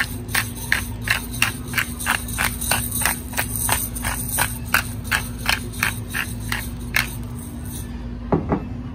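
Hand-twisted pepper mill grinding fresh black pepper: a steady rhythm of short grinding strokes, about three a second, that stops about seven seconds in.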